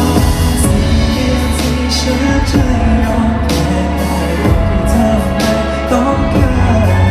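Live pop ballad: a singer's voice over band accompaniment with steady bass and drum and cymbal strokes.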